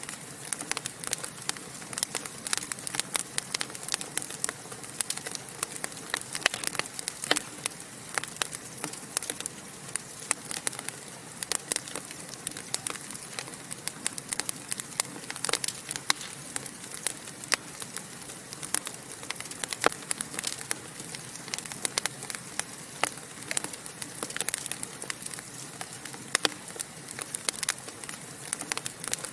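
Wood logs burning in a fireplace, crackling and popping continuously with dense, irregular sharp snaps over a soft steady hiss.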